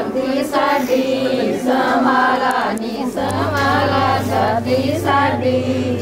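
A group of voices singing together, several pitches overlapping and wavering. A steady low hum joins about halfway through.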